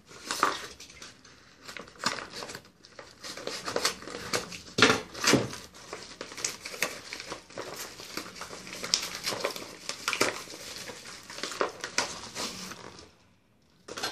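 Plastic parcel mailer and its padded inner wrap crinkling and rustling as they are pulled open by hand, with irregular crackles. The rustling dies away shortly before the end.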